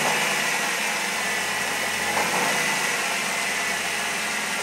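1995 Saturn SL2's four-cylinder engine running steadily with the throttle held slightly open, a rumbling racket with a steady high whine over it. The rumble comes from the bottom of the engine, which the owner found needs a rebuild.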